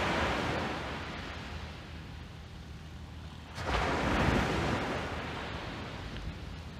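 Small waves breaking on a sandy beach: one surge of surf at the start, then a louder wave crashing in about three and a half seconds in and washing out.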